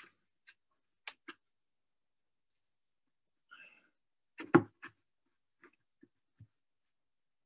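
Hands pressing and pinching wet clay-and-straw cob onto a wooden board: a few scattered soft taps and clicks, with one louder knock about four and a half seconds in, between stretches of near silence.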